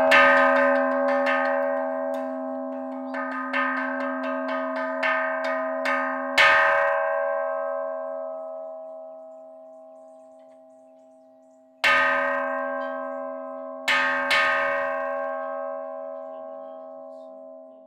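Large temple bowl bell rung as the calling bell that opens a Buddhist service. It is struck once, then with a run of quick light strikes, then with single strong strikes about six, twelve and fourteen seconds in. Each strike leaves a long, slowly fading hum of several tones, and the ringing cuts off abruptly at the very end.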